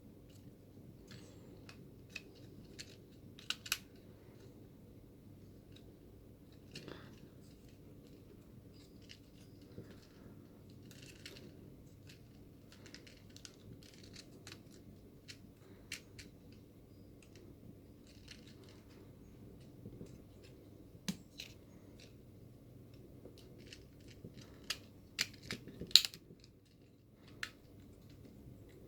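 Plastic parts of a transforming robot-dog alarm clock toy clicking and snapping as it is folded by hand. Scattered sharp clicks, with a quicker cluster of louder ones near the end.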